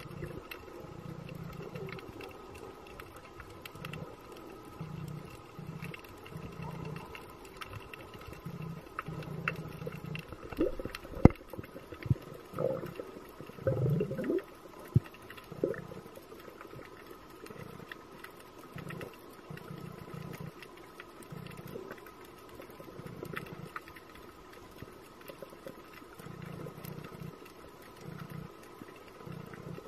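Underwater ambient noise: a faint steady hum with irregular low throbbing, scattered sharp clicks, and a cluster of short sliding squeaks and rumbles about halfway through, the loudest click near the start of that cluster.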